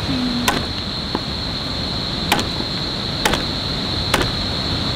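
Four sharp knocks, a second or so apart, over a steady high-pitched drone like insects and a low background rumble.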